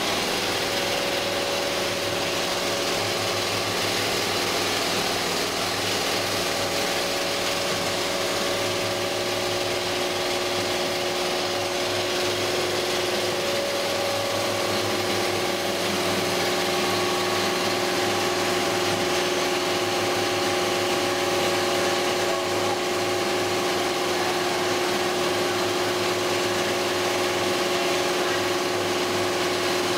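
Multi-needle rotary hook quilting machine running at speed: a steady, rapid mechanical chatter from its needles and hooks, with a few steady tones running through it.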